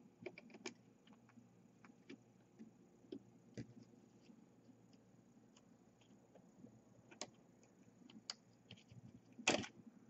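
Faint, scattered clicks and light metallic taps of small pliers working at a small brushless drone motor, with a louder brief clatter about nine and a half seconds in.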